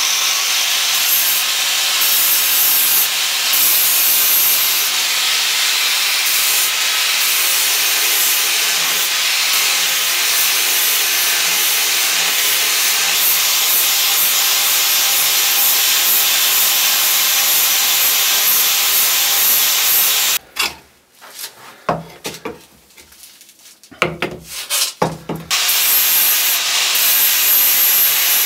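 Angle grinder with an abrasive disc grinding a steel cleaver blank, a steady loud grinding hiss. It stops for a few seconds about two-thirds of the way in, gives a few brief bursts, then runs steadily again near the end.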